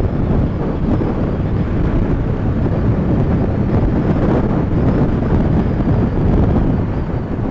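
Loud, steady wind rush over a headset microphone inside a motorcycle helmet while riding at road speed, heaviest in the low end.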